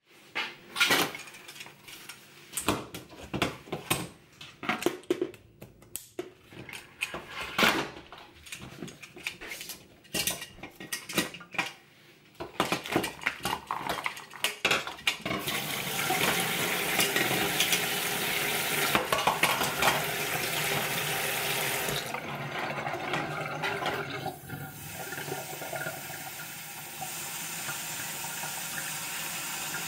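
Plastic hydration bladder and its tube handled, crinkling and knocking against a stainless steel sink. About halfway through, the kitchen tap comes on and water runs steadily into the sink and the bladder as it is filled.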